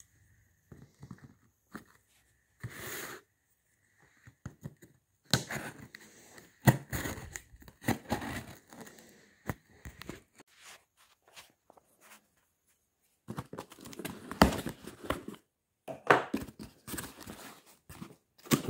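Clear packing tape along the seam of a cardboard shipping box being cut and torn open, in irregular scraping, ripping bursts with short pauses between. Near the end the cardboard flaps are pulled back and crumpled kraft packing paper crinkles.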